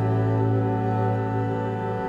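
Background music: slow, sustained instrumental chords with held tones.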